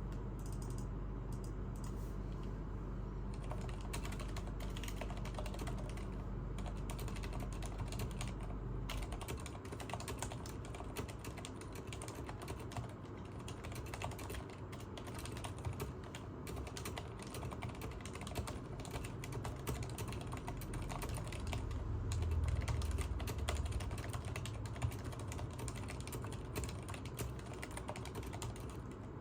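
Typing on a Leopold FC980MS mechanical keyboard with Cherry MX Silent Red linear switches: a fast, continuous stream of dampened keystrokes, sparse for the first few seconds, then dense.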